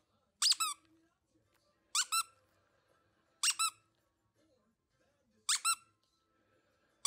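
Squeaky plush dog toy squeezed by hand, giving four short, high squeaks about every one and a half to two seconds, each a quick two-part squeak.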